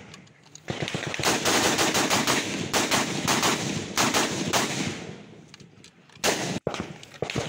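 Rapid rifle fire in dense bursts for about four seconds, then a shorter burst near the end.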